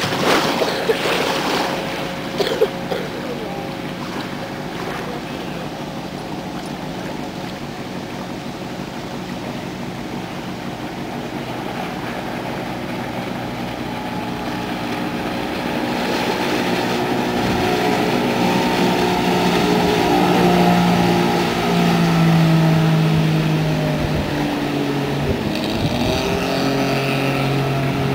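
Motorboat engines on the water: first a distant drone under wind and rushing water, then a speedboat engine growing louder as it comes close and passes, its note dropping as it goes by. Another boat's engine takes over near the end.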